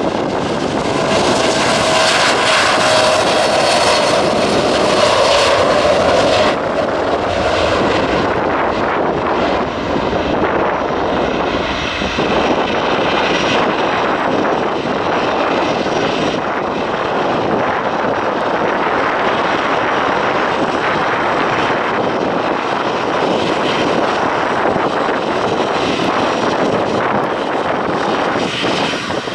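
Boeing 757 jet airliner's engines at takeoff thrust during its takeoff roll: a loud, steady rush with a whining tone for the first few seconds that gives way after about six seconds to a broader, steady rumble as the jet draws away.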